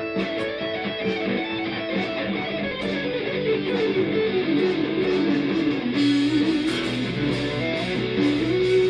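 Condor CLP1 electric guitar run through the AmpliTube amp simulator, playing a lead melody with pitch bends over a backing track, from small computer speakers. Drums with cymbals come in in the backing about six seconds in.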